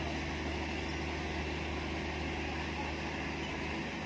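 Heavy crane's diesel engine running steadily with a constant low hum while it holds a steel bridge girder aloft.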